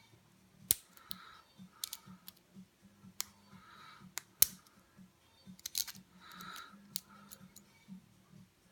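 Lock pick working the pins of a Maxus 50 mm padlock: soft scraping of the metal pick inside the keyway, broken by several sharp metallic clicks, the loudest under a second in and again about four and a half seconds in.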